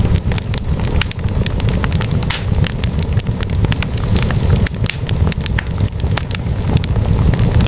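Log fire in a fireplace crackling, with frequent irregular sharp pops and snaps over a steady low rumble of the burning flames.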